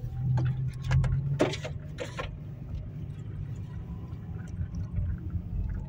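Car cabin noise while driving: a steady low engine and road rumble, with a few brief knocks in the first two seconds.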